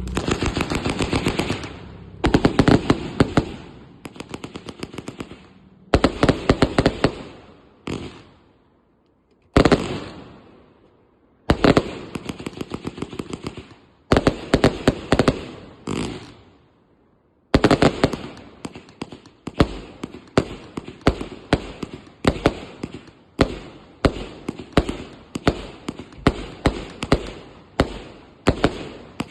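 A 150-shot firework cake firing: fast volleys of sharp launch bangs and crackling bursts, with two brief pauses, then a steady run of shots about one a second, each trailing crackle.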